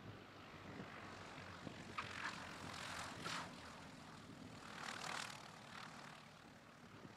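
Piper Twin Comanche's two piston engines and propellers running at low landing power as the aircraft touches down and rolls along the runway, a faint drone that swells a few times.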